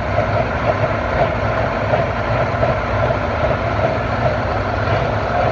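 Farm tractor engine running steadily at a fairly even speed, a loud, continuous low rumble.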